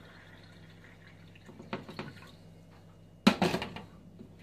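Water poured from a glass distiller jug into a drinking glass, faint and dripping, with a few small clicks of glass. A little over three seconds in comes one sharp, loud knock as the jug is set down on the hard counter.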